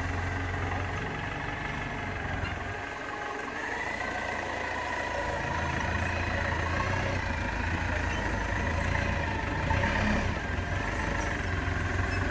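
Clark forklift truck's engine running at low speed as it manoeuvres with a load of pallets, a steady low hum with a higher whine that rises and falls a few times.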